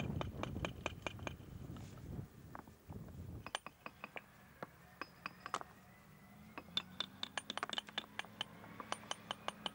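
Rounded fieldstones clinking and knocking against one another as they are set by hand into a stone paving bed: sharp, irregular clicks that come in quicker runs in the second half. A low rumble underlies the first few seconds.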